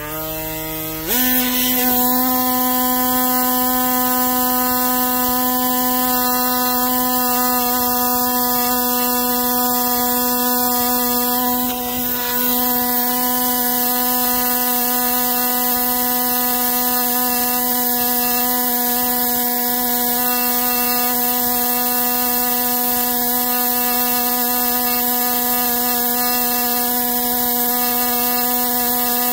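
Air scribe buzzing steadily as its needle chips rock away from a fossil leaf. Its whine climbs to full pitch as it comes up to speed about a second in, and sags briefly a little before halfway.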